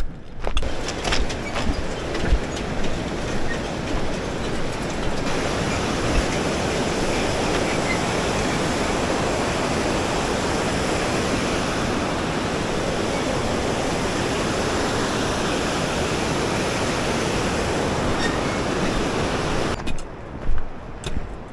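Steady rushing roar of a river running through the canyon bottom, even and unchanging. It cuts in just after the start and cuts off abruptly near the end.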